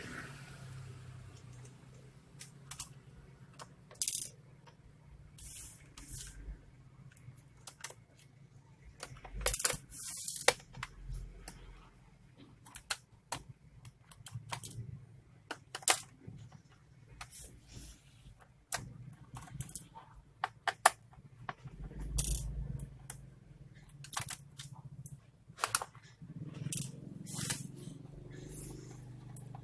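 Irregular sharp clicks and small metallic clinks of screws and a screwdriver against a laptop's plastic case as it is taken apart.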